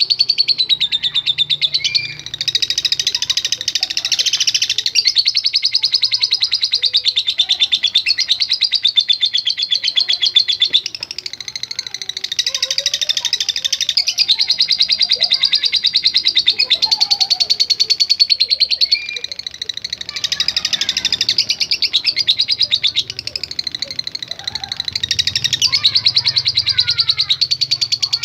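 Lovebird's long, continuous rapid chattering song (ngekek panjang): a fast, high-pitched stream of harsh notes that keeps going for many seconds, breaking off only briefly a few times.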